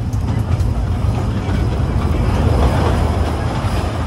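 Running noise of the Kurobe Gorge Railway's narrow-gauge open trolley train heard from aboard: a steady low rumble of wheels on rails with a rushing haze over it, a little louder about halfway through.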